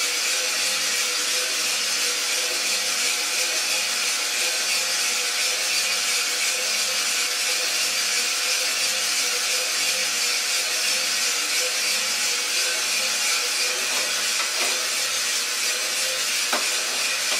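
iRoaster 600 coffee roaster running mid-roast: a steady rushing hiss with beans tumbling and rubbing in the turning drum, a low pulse about once a second and a few steady hums. A single sharp click near the end.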